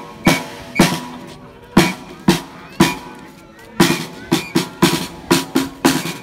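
Hand drum beaten in sharp, ringing strokes at an uneven pace, coming faster in the second half.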